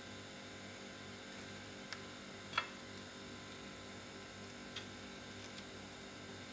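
Steady low electrical hum, with a few faint light clicks and taps from hands handling food and utensils at the counter. The sharpest tap comes about two and a half seconds in.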